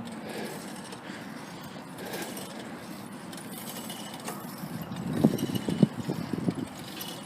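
Steady road noise of a car driving, with a cluster of short knocks and rattles about five to six and a half seconds in.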